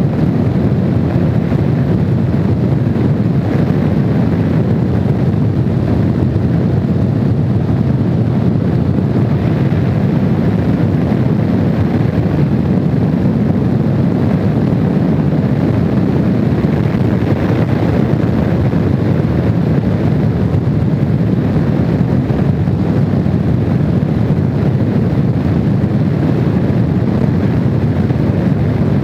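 Steady wind rushing over the microphone of a Honda VFR750 motorcycle at cruising speed, with the bike's V4 engine running under it.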